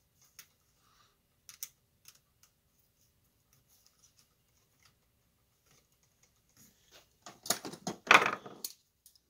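Scattered light clicks and taps of fingers and a small tool working the wires and terminal screw of a lamp socket. In the last two seconds comes a louder clatter and scraping of metal hand tools being handled, loudest about eight seconds in.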